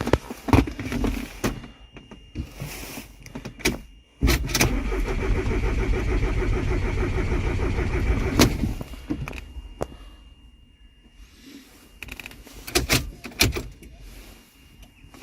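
Volkswagen Passat diesel engine being cranked on the starter for about four seconds without catching, with clicks and knocks before and after. The crank-but-no-start comes from no signal from the engine speed sensor G28 (fault P0322).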